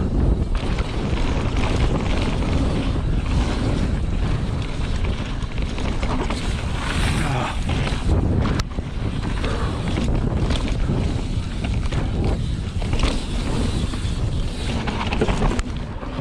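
Mountain bike descending fast on a dirt singletrack: heavy wind noise on the camera microphone over the rumble of the tyres on the trail, with scattered knocks and rattles from the bike over bumps, one sharp knock about two-thirds of the way through.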